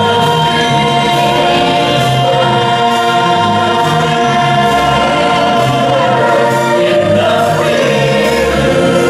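Stage musical song: a chorus of voices singing long held chords over instrumental backing with a stepping bass line.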